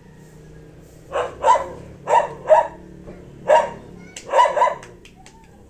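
A dog barking: about seven short barks, mostly in quick pairs, starting about a second in.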